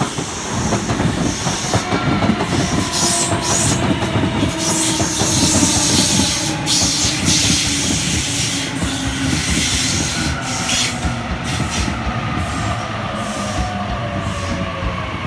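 Sydney Trains Waratah double-deck electric train arriving and braking into the platform: its traction motors whine, several tones falling slowly in pitch as it slows. Under the whine, the wheels rumble and clatter over the track, with short bursts of hiss.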